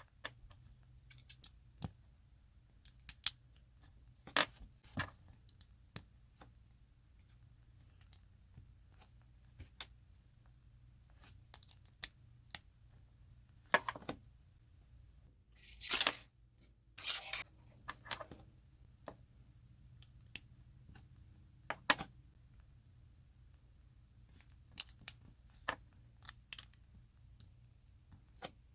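Plastic Lego bricks being handled and clicked together: scattered sharp clicks and taps at irregular times, with a few longer scrapes about halfway through.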